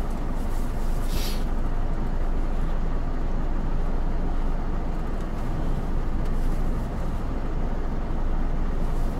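Semi-truck's diesel engine running steadily, its sound sitting low and even, with a brief hiss about a second in.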